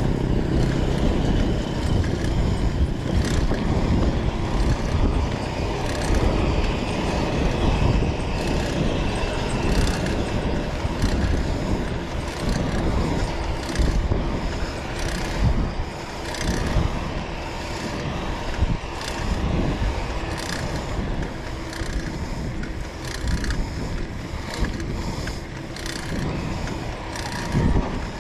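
A vehicle driving on the road: a steady low rumble of engine and road noise with frequent knocks and rattles.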